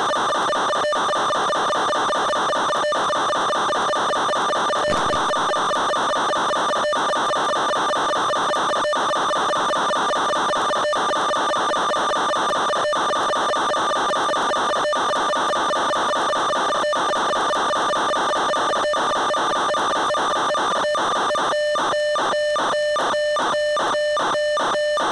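Steady electronic buzzing tone on the audio of an analog FPV video downlink, broken by a brief dropout about every two seconds. Near the end it starts chopping on and off about three times a second.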